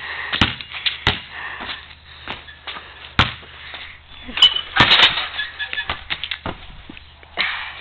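Basketball bouncing on a concrete slab, a handful of sharp, irregularly spaced smacks as it is dribbled.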